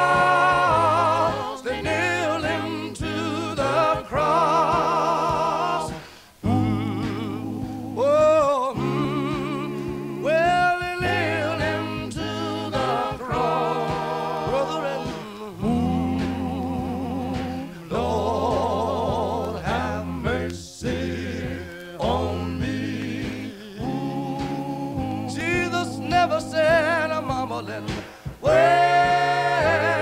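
Male gospel quartet singing in harmony, a lead voice bending and sliding over sustained lower voices, played back from a 45 rpm vinyl record.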